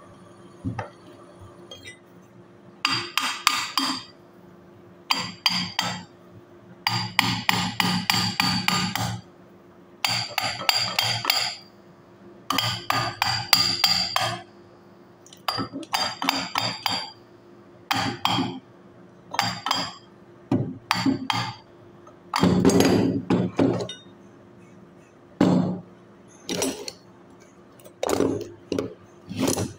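Bursts of rapid metallic tapping and clinking, each a second or two long with short pauses between, from tools working on a car AC compressor's clutch and pulley.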